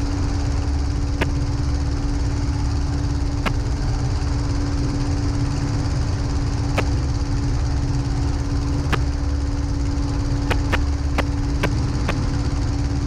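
Light aircraft's piston engine and propeller droning steadily in the cabin of a 1946 Aeronca Champ, with a few sharp clicks scattered through.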